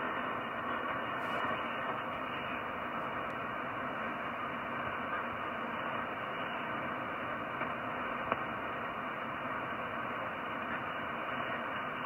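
Steady hiss of shortwave band noise from a transceiver's speaker on the 15-metre band in upper sideband, cut off above the voice range by the receiver's filter, with no readable signal: the frequency is quiet between transmissions. One small click about eight seconds in.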